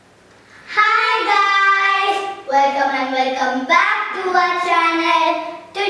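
A child singing, starting about a second in, in a few phrases of long held notes.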